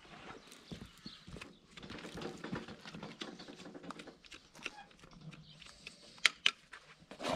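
Cow restrained in a hoof-trimming crate: a low, drawn-out call from the animal for about two seconds in the middle, among scattered knocks, with two sharp clicks a moment apart near the end.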